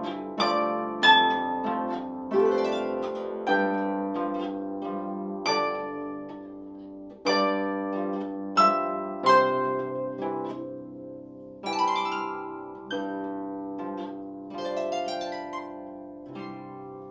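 Lever harp played solo: plucked notes and chords in an unhurried waltz, each left to ring on. A last chord near the end rings and dies away.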